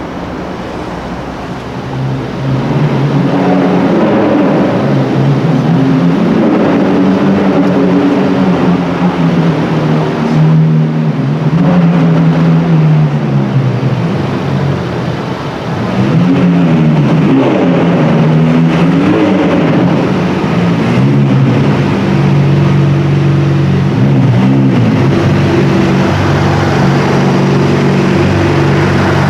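A high-performance car engine running loud, its pitch rising and falling as it accelerates and revs. It eases off about halfway through, then picks up again with several rev rises before holding steady near the end.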